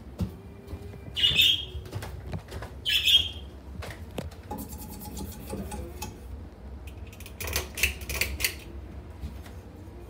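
A small Hampton Bay Metairie 24-inch ceiling fan running with a low, steady hum and light clicks. Short high-pitched chirps or squeaks stand out about a second in, again about three seconds in, and as a quick cluster near the eight-second mark.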